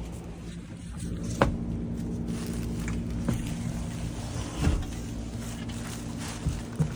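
Bus driver's seat being worked up and down on its new seat shock dampener: a sharp click about a second and a half in, then a few knocks and clunks from the seat mechanism, over a steady low hum.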